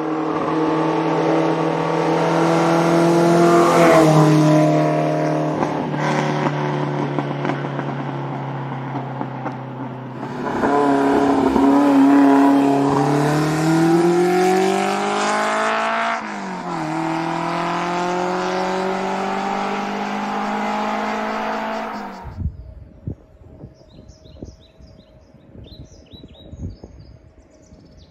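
Vintage sports car engine running hard under acceleration, its pitch climbing and dropping sharply at gear changes about four and sixteen seconds in. The engine sound cuts off about 22 seconds in, leaving faint high chirps like birds.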